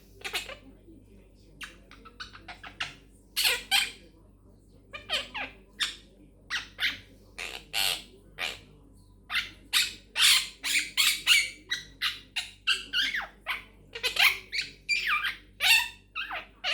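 Quaker parrot (monk parakeet) chattering in a rapid string of short, high squawks and chirps, busiest in the second half.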